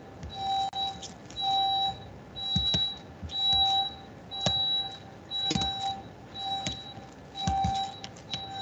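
Electronic beeping, a short two-pitch beep repeating about once a second, with a few scattered keyboard clicks.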